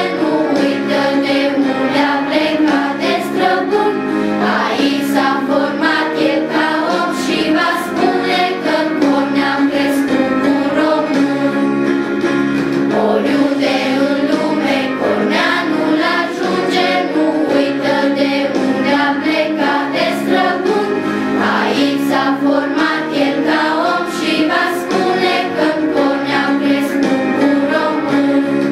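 A choir singing the school's anthem, a song with instrumental accompaniment.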